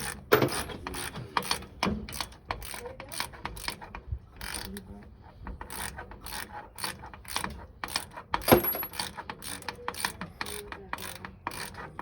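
Hand ratchet wrench clicking in quick, even strokes as a drive shaft bolt is backed out, with a short lull about four seconds in and one louder metal clank a little past eight seconds.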